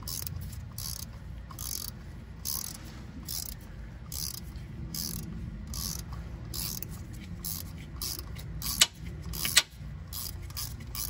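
Ratcheting wrench clicking in repeated short strokes, about twice a second, as it backs out the 13 mm belt tensioner bolt. Two sharper, louder metallic clicks come near the end.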